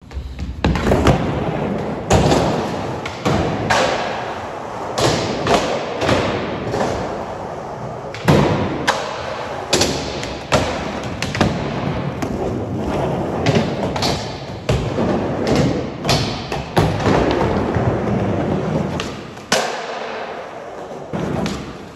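Skateboard rolling on a concrete skatepark floor, the wheels giving a steady rumble broken by repeated sharp pops and thuds as the board is popped, lands and slaps the concrete.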